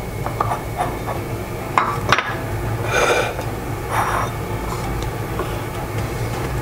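Tableware bowls set down and slid into place on a stone countertop: a few light knocks and clinks in the first two seconds, then two short scraping sounds.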